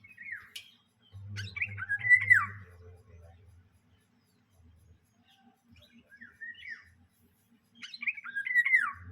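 Birds chirping and calling in short bouts of quick, falling notes, loudest about a second in and again near the end.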